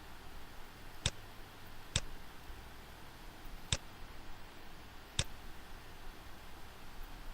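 Computer mouse button clicking four times at uneven intervals over a steady faint hiss and low hum.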